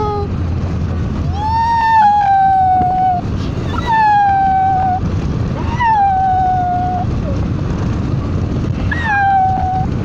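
A high-pitched voice holding four long wordless 'ooo' notes, each sliding slowly downward, over the steady rumble of road and wind noise inside a moving car.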